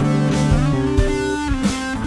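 Instrumental music: guitar playing held notes that step from pitch to pitch, over regular drum hits.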